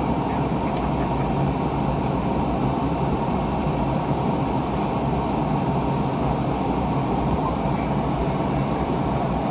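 Steady cabin noise inside a McDonnell Douglas MD-88 airliner in flight: an even rush of air with a low drone from its tail-mounted Pratt & Whitney JT8D engines.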